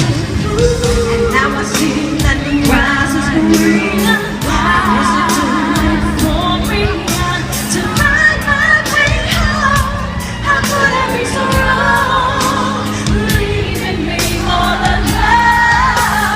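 Live freestyle dance-pop music: singing with vibrato over a steady drum beat and bass line, recorded loud from the audience at a concert.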